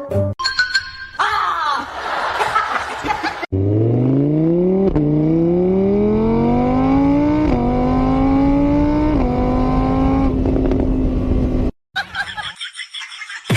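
A car engine accelerating hard through the gears: its pitch climbs, drops sharply at each of three gear changes and climbs again, then holds before cutting off suddenly. It starts about three and a half seconds in, after a few seconds of mixed noise.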